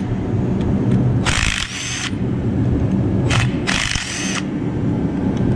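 Cordless power driver spinning out valve cover bolts on an LS V8 cylinder head in three short bursts, the longest about a second, each with a thin whine from the motor.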